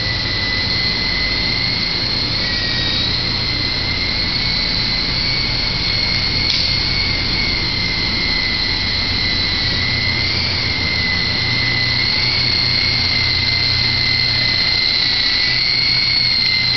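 Blade CX3 coaxial electric RC helicopter in flight, its motors and rotors giving a steady high whine that wavers slightly in pitch, over a low hum.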